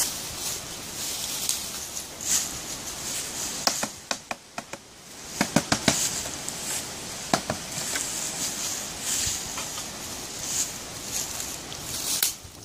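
A series of sharp knocks and taps as a box in the undergrowth is handled. They come in a cluster between about four and six seconds in, with one more a little later, over a steady high hiss of insects and woodland.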